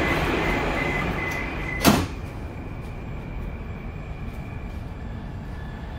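Moskva-2020 metro train's sliding doors closing: a repeated warning beep sounds until the doors shut with a single sharp thud about two seconds in. After the thud the car is quieter.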